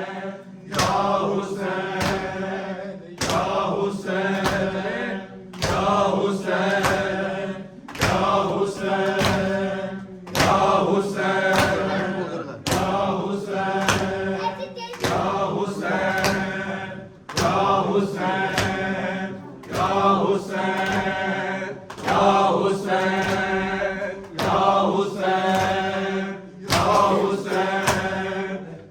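A group of mourners chanting a noha in unison, a short line repeated about every two and a half seconds, with sharp rhythmic slaps of matam chest-beating in time with the chant.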